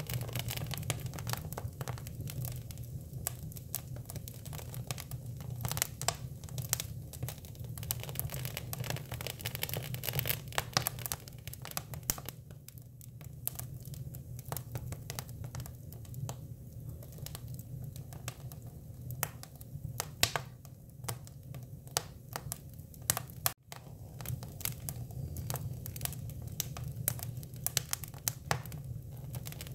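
Hinoki cypress wood burning, crackling and popping in irregular snaps over a low steady rumble.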